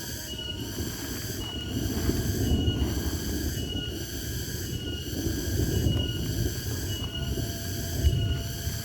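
Chorus of insects, such as cicadas or crickets, buzzing high-pitched in even pulses about once every 0.7 s, over a low, uneven rumble.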